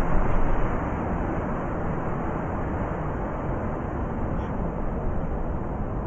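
Blizzard wind blowing hard and steadily. A louder gust in the first second eases off.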